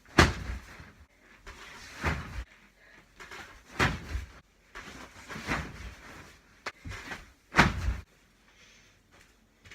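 A series of about six loud thumps or knocks, irregularly spaced a second or two apart, each with a deep low end.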